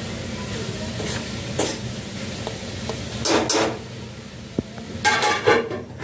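Indian ringneck parrot feeding on a fresh green corn cob: its beak crunches kernels and tears at the husk in short scraping, rustling bursts over a steady low hum. About five seconds in comes a louder, brief burst with a pitched ring to it.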